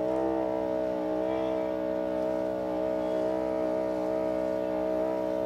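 Motorized sprayer running steadily while spraying, its motor humming at one even pitch.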